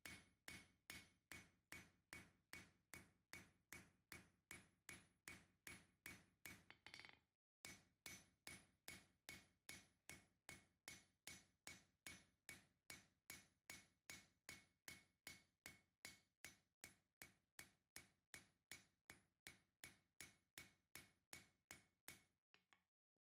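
Faint, evenly paced hammer blows on hot 5160 spring steel over an anvil, about two and a half strikes a second with a ringing note, as the knife's cutting-edge bevel is forged in. There is a short break about seven seconds in.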